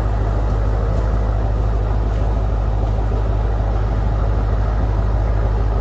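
A cargo boat's engine running steadily, a constant low rumble heard on board.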